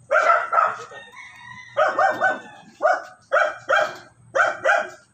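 Domestic animal calling over and over: loud short calls in quick groups of two or three, with a fainter drawn-out call about a second in.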